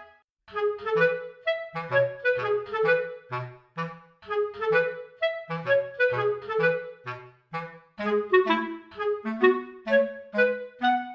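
Background music: a bouncy melody of short, detached woodwind-like notes, about three or four a second, over a bass line.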